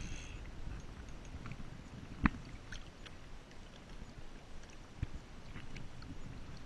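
Water lapping and sloshing against the side of a kayak, with a low wind rumble on a chest-mounted camera's microphone. One sharp knock a little over two seconds in.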